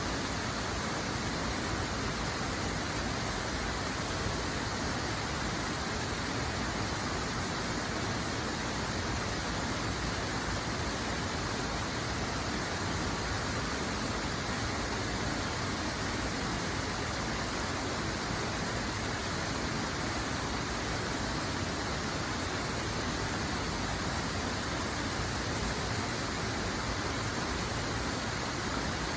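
Steady rushing water, an even hiss that does not change.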